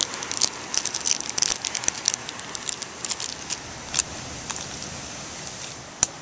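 Thin plastic packaging crinkling and crackling as small model airplane parts are unwrapped by hand, dense for the first three seconds, then only a few scattered clicks.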